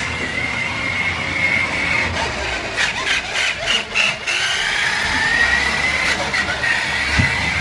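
Electric motor of a remote-control toy car with a cat riding on it, running with a steady high whine that dips and rises in pitch as it drives, over a rasping rattle of its wheels on a hardwood floor. A quick run of clicks comes about three to four seconds in, and a thump comes near the end.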